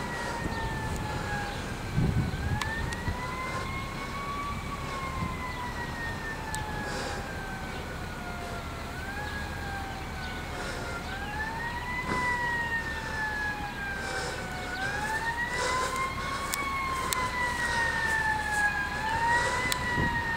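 A 1995 KME pumper fire engine's siren wailing in slow sweeps, each rising quickly and falling away over about four to five seconds, growing louder toward the end. A brief low thump about two seconds in.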